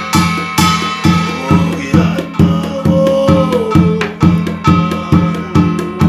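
Korean shaman's barrel drum (buk) beaten with a stick in a steady beat of a little over two strokes a second, the brass gongs mounted on it ringing, for a Korean shamanic sutra recitation (gyeongmun reading). A male voice chants along in long, wavering held notes.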